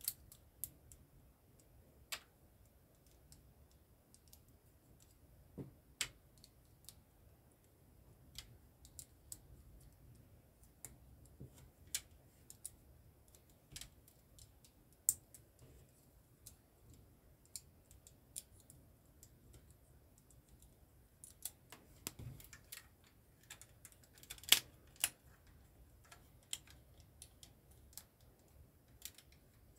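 LEGO bricks clicking as they are handled and pressed together: scattered sharp plastic clicks at irregular intervals, the loudest two close together about three-quarters of the way through.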